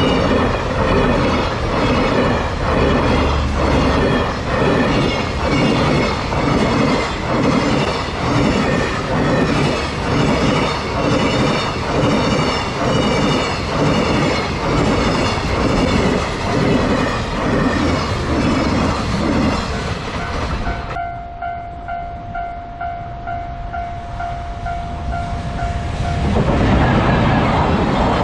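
Freight train wagons rolling through a level crossing, the wheels beating over the rail joints in a steady clickety-clack. About three-quarters of the way in the train sound cuts off suddenly, leaving a level crossing warning bell ringing evenly. Near the end the rush of another train comes in.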